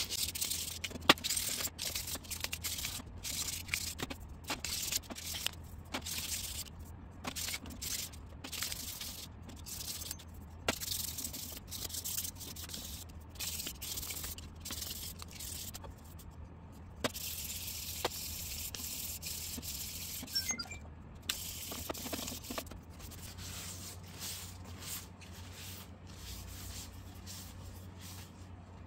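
Hand-sanding a resin 3D-printed wheel pattern with 1500-grit sandpaper on a sanding block: a run of quick back-and-forth rasping strokes, one longer continuous stroke about two-thirds of the way through, over a steady low hum.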